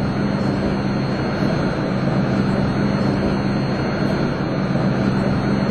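Ansaldo Breda Sirio tram running: a steady noise with a low, steady hum underneath.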